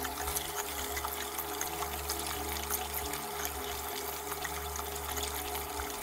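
Cold tap water running into a pot of sushi rice while the rice is swished by hand to rinse off the starch, a steady rush of water with many small splashes.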